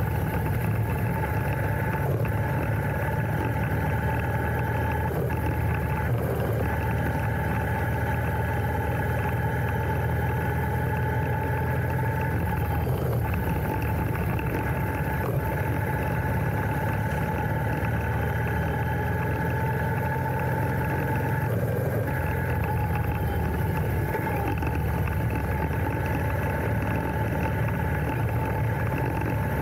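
Royal Enfield Interceptor 650's parallel-twin engine running steadily while riding, heard close up from the handlebars, with a few brief dips in its drone.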